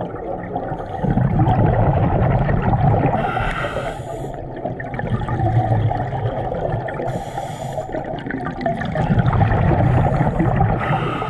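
Scuba diver breathing through a regulator underwater: three breaths, each a rumbling, bubbling exhale followed by a short hiss of inhaled air.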